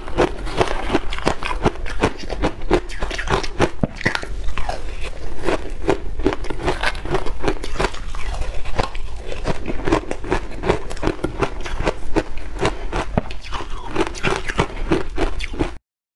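Close-miked crunching and chewing of shaved ice coated in matcha powder, a dense run of sharp crunches several times a second, stopping abruptly near the end.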